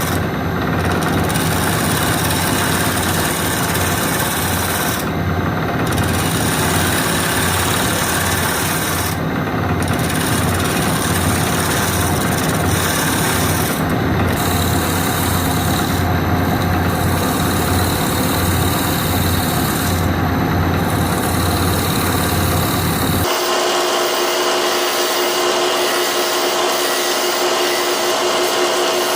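Powermatic 90 wood lathe spinning a piece of swamp oak while a turning tool cuts it, a steady hum under scraping and cutting noise. About 23 seconds in the sound changes abruptly to a steadier, higher motor whine without the low hum.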